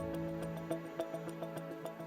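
Soft background music with sustained tones and light, regular ticking notes.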